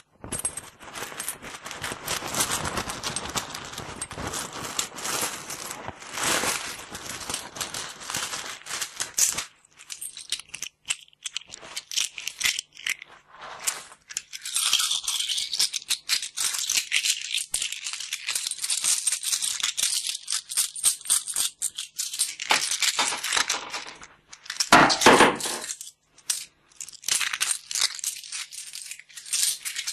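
Binaural recording of coins being handled close to the ears: long runs of small metallic clinks and rattles, dense in places, with a loud burst of coins near the end.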